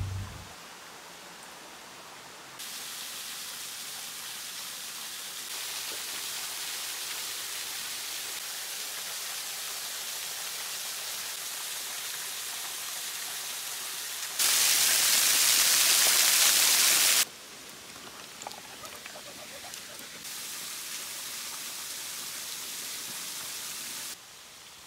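Steady rushing splash of a thin waterfall pouring off a rock ledge onto the stones below. It changes level abruptly several times and is loudest for about three seconds midway.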